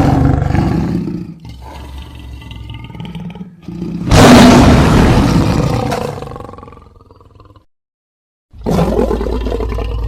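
Lion roar sound effects played one after another: a roar trailing off, then a quieter growl, then a loud roar about four seconds in that slowly fades. After a moment of dead silence, another roar starts near the end.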